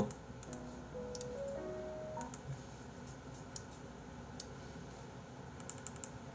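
Faint computer mouse clicks, scattered and then several in quick succession near the end. A few soft music notes stepping upward play in the first two seconds.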